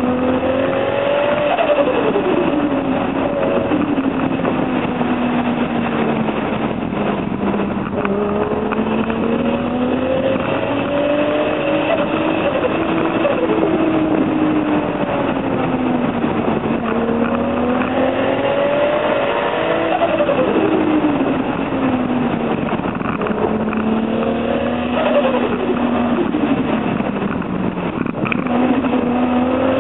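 Toyota Supra JZA80's turbocharged 2JZ straight-six, fitted with a single T04Z turbo, pulling hard and backing off through the gears, its pitch rising and falling throughout with a few sharp drops at gear changes, over steady road and wind noise.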